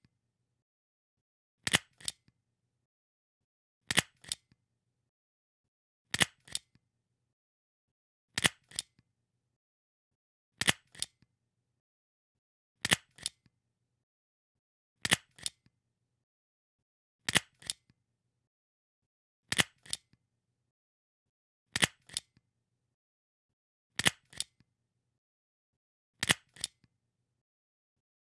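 A stapler snapping shut, again and again: a sharp double click every two seconds or so, about a dozen times.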